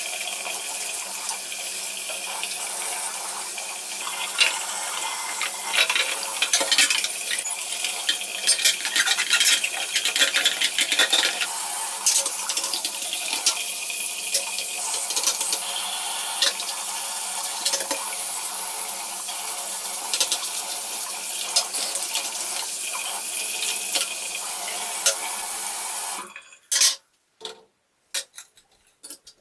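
Bathroom tap running into a sink while plastic exhaust-fan parts are scrubbed with a paintbrush under the stream, with many light clicks and clatters of plastic against the basin. The water cuts off near the end, followed by a few separate knocks.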